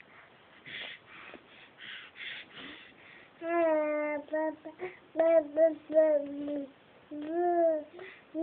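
Baby breathing in quick, breathy huffs, then, a few seconds in, cooing in several long, drawn-out vowel sounds.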